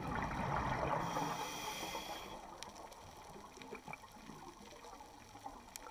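Scuba diver breathing through a regulator, heard underwater: a burst of bubbling in the first two seconds or so, then faint scattered clicks.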